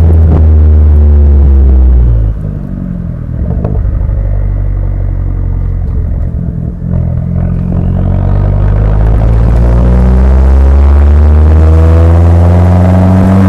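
Fiat 500 Abarth's turbocharged 1.4-litre four-cylinder heard at the tailpipe while driving, distorted by wind noise and clipping. The exhaust is loud at first, drops in level about two seconds in and sags in pitch as the revs fall, then climbs steadily in pitch through the last five seconds as the car accelerates.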